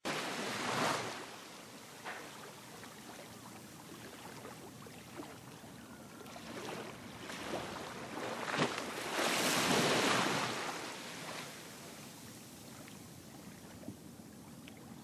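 Small sea waves washing in a hiss of water, swelling loudly about a second in and again for a couple of seconds past the middle, then easing off.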